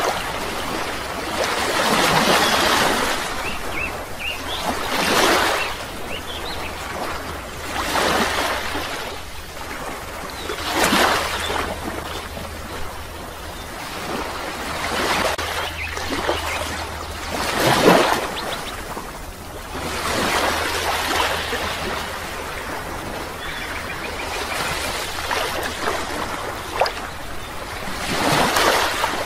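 Waves washing in, rising and falling about every three seconds, with a steady low hum underneath.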